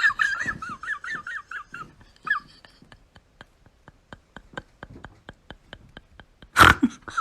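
An animal's fast, warbling high-pitched calls, followed by a run of sharp, evenly spaced clicks about three or four a second, and a sudden loud burst of noise near the end.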